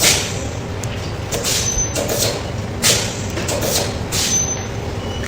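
Steady background noise with several short knocks and clicks from a push-pull connector plug being handled.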